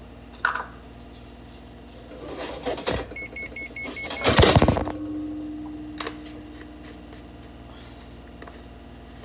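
Hands rubbing seasoning into a raw chicken in an enamel roasting pan, handling noise loudest about four seconds in. Just before it comes a quick run of short electronic beeps, followed by a steady low hum for a few seconds.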